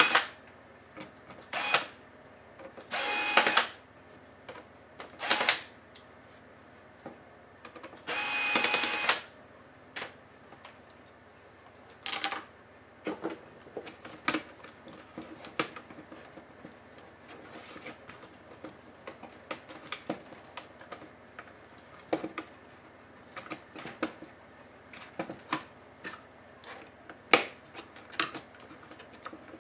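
Electric screwdriver whirring in short bursts, about six times over the first twelve seconds, backing out the netbook's screws. After that come light clicks and taps of plastic parts being handled.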